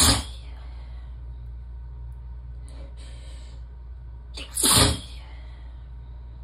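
A woman sneezing twice, one sneeze right at the start and another about four and a half seconds in, with a short breath in between them, over a steady low hum.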